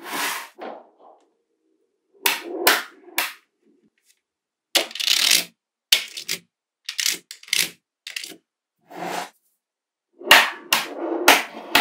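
Small magnetic balls clicking and clattering together as they snap into place. The sound comes in about seven short bursts, each under a second long, with silence between them.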